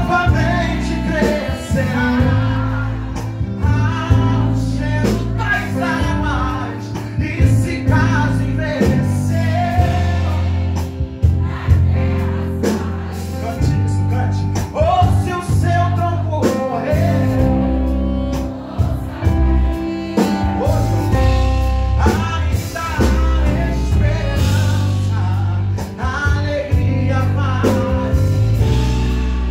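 Male singer performing a Portuguese-language gospel worship song, the voice bending through melismatic runs over a steady instrumental accompaniment with sustained bass notes.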